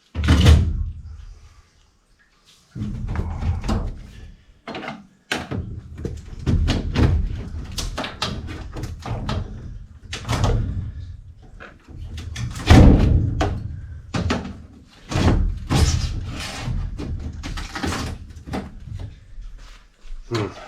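Repeated irregular thumps, knocks and scraping from a new evaporator coil being shoved and lifted into position, with the heaviest bangs about a second in, around ten seconds in and around thirteen seconds in.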